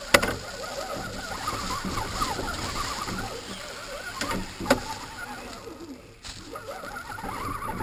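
Radio-controlled Axial crawler trucks driving over dry leaves and dirt: motor whine rising and falling with the throttle over the crunch of tyres through leaves. There is a sharp knock at the start and two more about four and a half seconds in.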